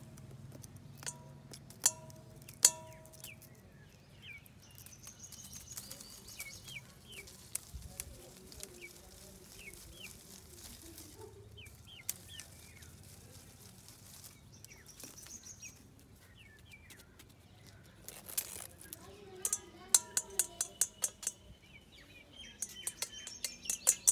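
Small birds chirping in short, quick calls. Bursts of sharp clicking taps come near the start and again in the last few seconds.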